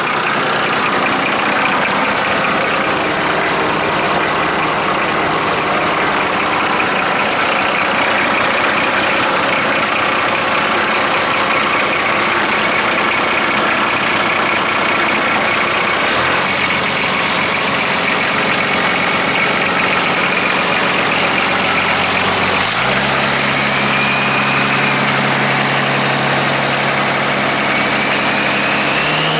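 Toyota Landcruiser turbo diesel engine in a Galion grader running just after starting. Its revs step up about halfway through and again a few seconds later. A high whine rises near the end.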